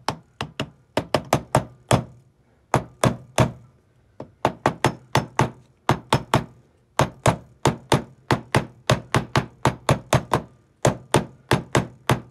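A hammer tapping a drift to drive a rear hub bearing into a Morris Minor rear hub. Quick runs of sharp taps, about three to four a second, with short pauses between the runs.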